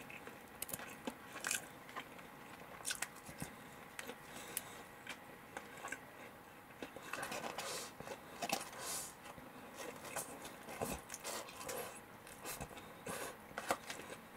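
A person biting and chewing fried chicken (karaage) and rice, with irregular crunches and light clicks of chopsticks.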